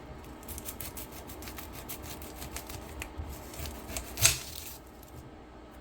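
An onion's papery outer skin crackling and rustling as it is handled, a run of small dry ticks with one sharper tap about four seconds in.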